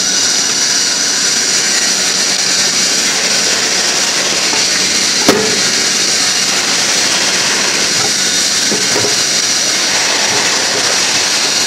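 Steady, loud hiss of workshop background noise, with one sharp metallic knock about five seconds in and a couple of faint knocks near nine seconds as the aluminium gearbox casing is lowered onto the gear train.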